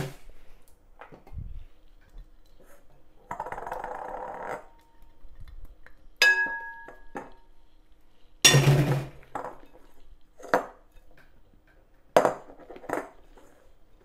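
Kitchen utensils and dishes clinking and knocking while preparing a souffle omelette. There is a brief scrape about three seconds in, a ringing clink about six seconds in, and the loudest knock a couple of seconds later, followed by a few lighter knocks.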